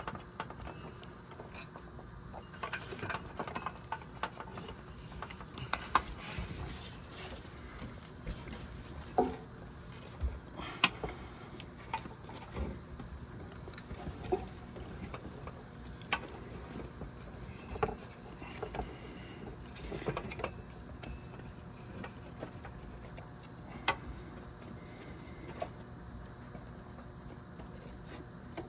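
Irregular light clicks, knocks and rubbing as a drive belt is worked by hand down into the engine bay and around the crankshaft and water pump pulleys.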